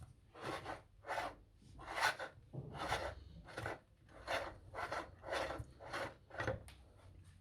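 Meat grinder grinding ice cream, a rasping scrape repeating about every 0.7 seconds, some ten strokes in all.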